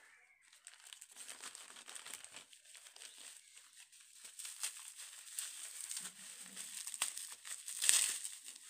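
Plastic packaging, a courier pouch and bubble wrap, crinkling and crackling as hands unwrap and handle it. The crackles come irregularly and get louder toward the end.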